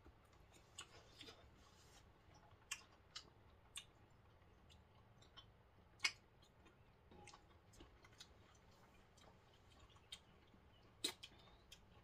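Quiet eating: scattered faint clicks of forks against glass plates and soft chewing of orange segments, the sharpest clicks about six and eleven seconds in.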